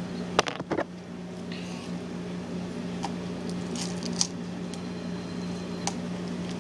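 Plastic packaging of a DVD set being opened and handled: scattered clicks and brief crinkling rustles over a steady low hum.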